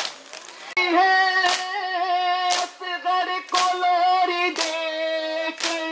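A nauha (Muharram mourning lament) sung in long held notes. Sharp matam strikes, hands beating on chests, keep time with it about once a second.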